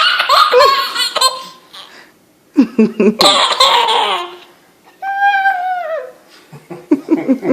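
A baby laughing hard in repeated bouts of breathy giggles, her usual reaction to hearing someone cough. About five seconds in comes one long high note that drops in pitch at its end, followed by softer, lower bursts.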